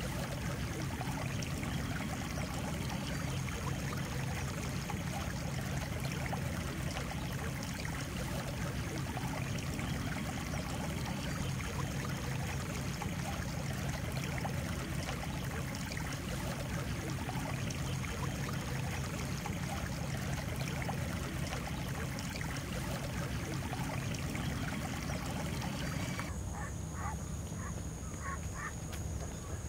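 A steady rush of noise, like floodwater flowing over a field, for most of the clip. Near the end it cuts to a quieter scene with short, repeated duck calls.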